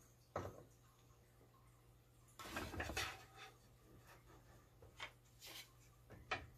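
Thin wooden slats being set down and shifted on a board: a few light wooden knocks and scrapes, with a longer clatter about two and a half seconds in.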